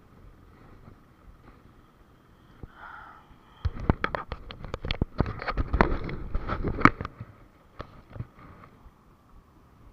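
Handling noise right at the camera microphone: a quick run of knocks, taps and rustles lasting about three seconds in the middle, over a low background hiss.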